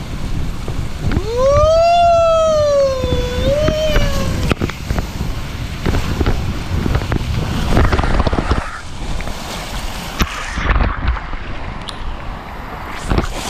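An inflatable tube rushing down a water slide, with a rumbling mix of water and wind noise on the camera and scattered knocks. About a second in, a rider lets out one long whoop that rises, then falls and wavers, lasting about three seconds.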